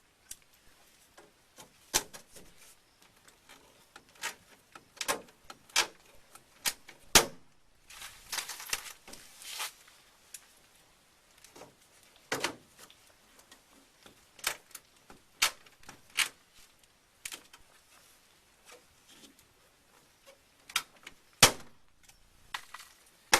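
Pop rivets being set with a hand rivet tool: a string of sharp clicks and snaps at irregular intervals, the loudest about seven seconds in and near the end.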